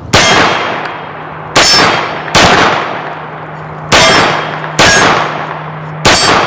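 Six pistol shots from an FK BRNO PSD, unevenly spaced, each followed by a metallic clang and ring from steel targets being hit.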